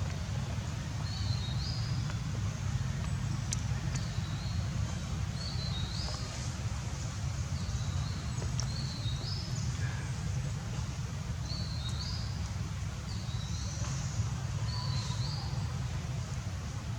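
A bird repeating a short, high, rising two-step chirp every second or two, over a steady low rumble.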